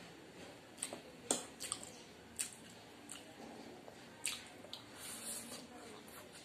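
Close-up eating sounds: wet chewing and a noodle slurp around five seconds in, with a few sharp clicks of metal forks against plates.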